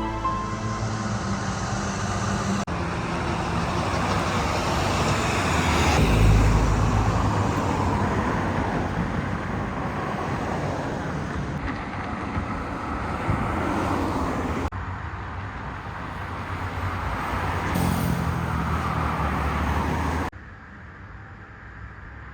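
A vehicle driving on the road: steady engine and tyre noise in several short clips cut together, with a quieter stretch near the end.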